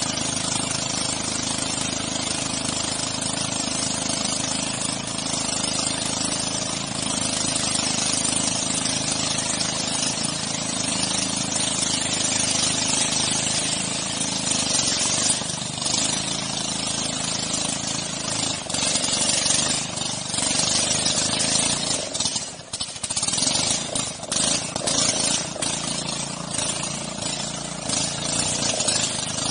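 Boat engine of a motorized dugout canoe running steadily at cruising speed, with water rushing past the hull and wind noise. The rushing and wind turn choppier in the later part, with a brief dip in loudness about two-thirds of the way through.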